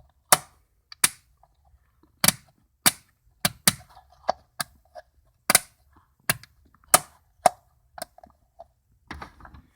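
Toggle switches on a newly wired control panel clicking on and off, about a dozen sharp snaps at uneven spacing.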